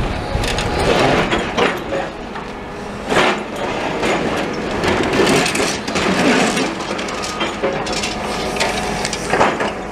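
Demolition work: rubble and timber being crushed, an irregular run of crunching and cracking with no break.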